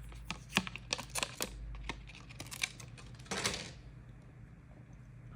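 Small hard parts being handled on a work surface: a quick run of sharp clicks and taps, then a short rustle about three and a half seconds in.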